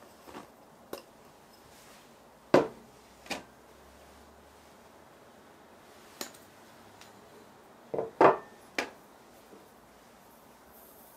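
Small glass dishes knocking and clinking against a glass mixing bowl as flour is tipped in: a scatter of sharp taps, the loudest about two and a half seconds in, and a quick run of three a little after eight seconds.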